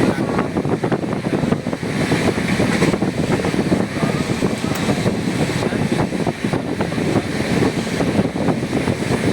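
Moving train heard from on board: a steady rumble with a dense, fast rattle of wheels and carriage, and wind buffeting the microphone.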